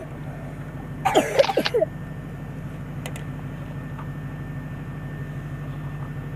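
Steady low drone of the car's engine and road noise heard from inside the cabin while driving. About a second in, a person makes a short, loud burst of a vocal sound that lasts under a second.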